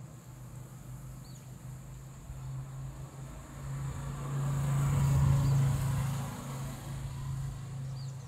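A motor vehicle's engine running with a steady low drone, growing louder to a peak about five seconds in and then fading again, as it passes close by. Faint bird chirps come through a few times.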